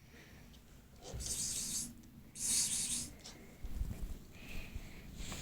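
Cat hissing twice, two short rasping hisses about a second apart during a cat fight.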